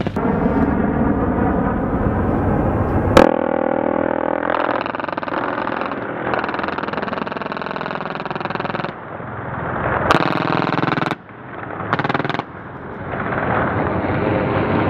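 Helicopter-mounted machine gun firing long, very rapid bursts that blur into a buzz, broken off and resumed several times.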